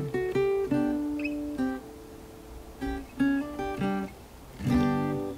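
Background music: acoustic guitar picking a run of single notes, closing on a louder strummed chord that rings out near the end.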